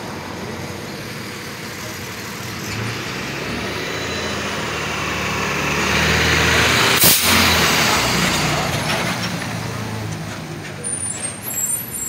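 A truck engine passing close, swelling to its loudest about seven seconds in and then fading, with one short sharp burst of hiss at the peak.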